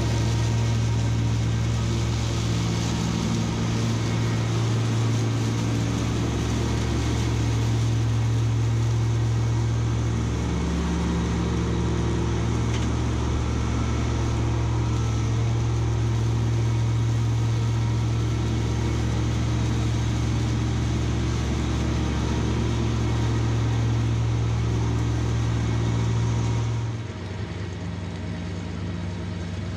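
Kubota B2601 compact tractor's three-cylinder diesel running steadily under load, driving a Land Pride FDR1660 finish mower through tall, dense grass. About 27 seconds in, the sound drops somewhat quieter.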